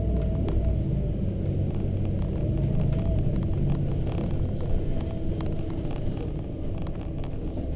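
A 2010 Volvo B7RLE single-deck bus under way, heard from inside the cabin: its six-cylinder diesel engine and drivetrain run with a steady low rumble, with light clicks and rattles from the fittings.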